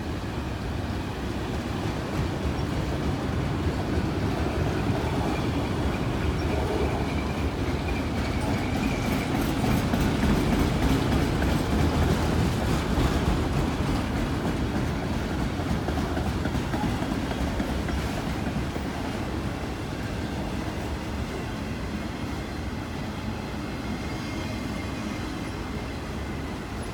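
A long Canadian Pacific manifest freight train rolling past on the rails. The steady noise of its cars grows louder to a peak about halfway through, then eases off.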